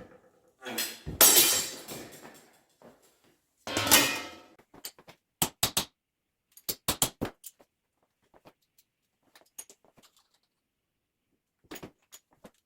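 Bench shear cutting .093-inch aluminum sheet, with two loud cuts about a second and about four seconds in. Short sharp metal clicks and clinks follow, often in quick pairs, as the sheet and shear are handled.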